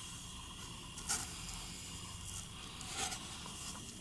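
A thick cardboard page of a children's board book being turned by hand: two short, soft brushing sounds, about a second in and about three seconds in, over faint room hiss.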